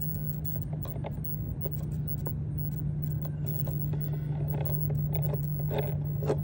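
Small clicks and light rattles as an RC helicopter's main gear and drivetrain are handled and turned by hand, over a steady low hum.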